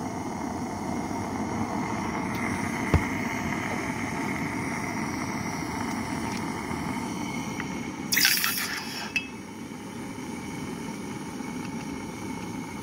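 Gas torch running steadily on a small furnace melting gold, with a single click about three seconds in. About eight seconds in, molten gold poured from a ceramic egg-cup crucible into chilled water gives a brief, sharp sizzle as it quenches into grains, and the steady noise drops soon after.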